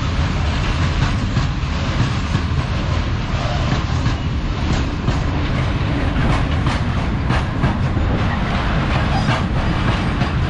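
Electric-hauled freight train rolling past close by: a steady rumble of the wagons, with their wheels clicking over the rail joints.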